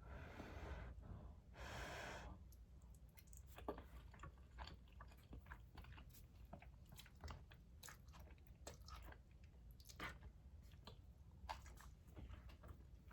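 Faint close-up chewing of soft noodles, a run of small wet mouth clicks. Two breaths or sniffs come at the start.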